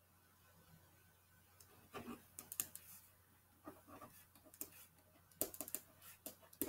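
Pen writing on paper: a string of short, faint scratches and taps as the strokes of an equation are drawn, starting about two seconds in.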